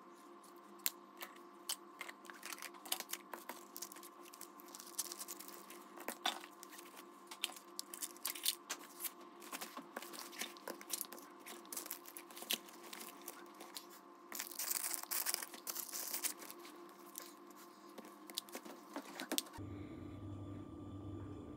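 Quiet handling noise from a thin fabric bag insert: rustling and crinkling with many small clicks and taps, and a denser burst of rustling about two-thirds of the way in. Near the end the handling stops, leaving a low steady hum.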